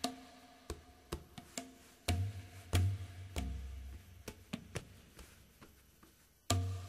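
Percussion music: sharp, ringing wood-block-like clicks in an uneven rhythm, with a few deep drum beats from about two seconds in and again near the end.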